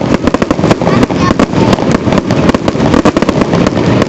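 Fireworks display going off: a rapid, continuous run of bangs and crackles, several a second.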